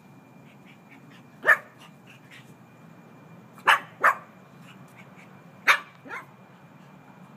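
Pug puppy barking: five short, sharp barks, the second and third close together, the last two close together with the final one weaker.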